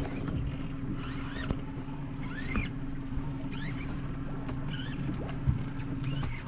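Boat engine idling with a steady low hum, with about five short rising squeaks over it.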